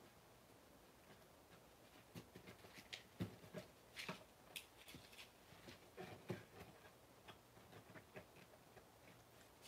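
Faint scattered taps and rubs of hands handling a cardboard storage box, starting about two seconds in.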